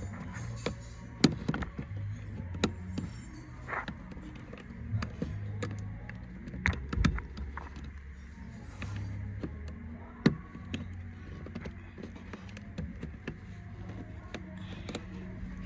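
Irregular sharp clicks and knocks of hand work on car parts, with the loudest strikes about a second in, near the middle and about ten seconds in, over a low hum that shifts in pitch.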